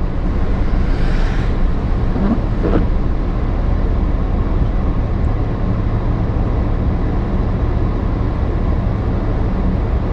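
Lifted 2006 Chevy Silverado pickup's engine running steadily with a low hum as the truck is driven round to the scale, with a brief hiss about a second in.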